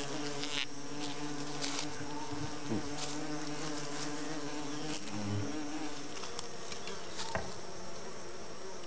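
Several orchid bees buzzing around a scent bait: a steady droning hum of overlapping wingbeat tones that waver as the bees move, with one bee sweeping past a little under three seconds in, its pitch dropping.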